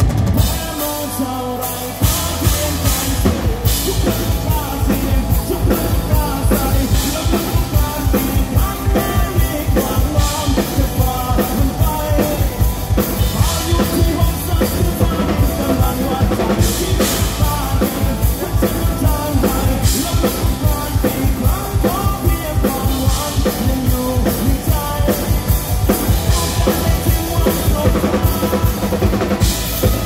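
Live rock band playing, with a drum kit and bass driving a steady, even beat. The band drops quieter for about the first two seconds, then the full drums come back in.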